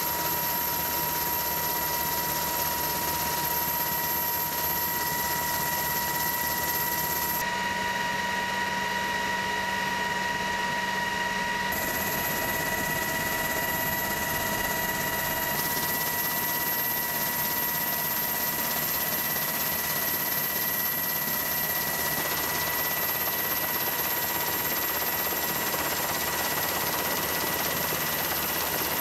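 Jet aircraft engines running on a carrier flight deck: a steady rush of engine noise with a high, even whine. Its character changes abruptly a few times.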